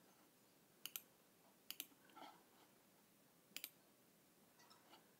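Computer mouse clicking quietly, three quick double clicks spread over a few seconds, with faint handling noise between them.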